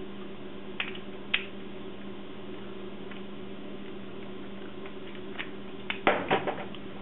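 A maple syrup bottle being handled: two sharp clicks about a second in, then a quick cluster of clicks and knocks near the end, over a steady electrical hum.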